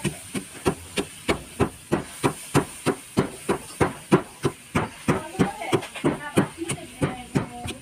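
Wooden pestle pounding rice in a wooden mortar to make rice flour: steady, regular thuds about three times a second.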